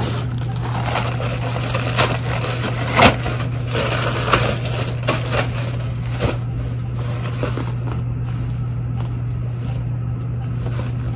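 Rustling and crinkling of packaging as clothes are unpacked and handled, with irregular crackles and one sharper crackle about three seconds in, over a steady low hum.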